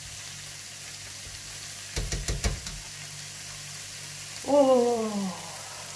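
A cluster of quick knocks or clatters about two seconds in, over a steady low hum and hiss in a kitchen. Near the end a woman lets out a long, falling 'oh'.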